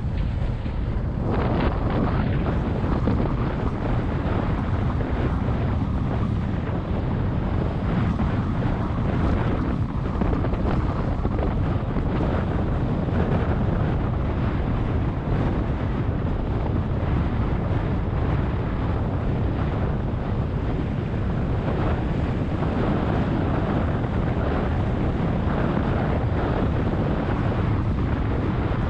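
Steady wind buffeting the microphone over the rumble of a moving pickup truck, heard from its open rear bed.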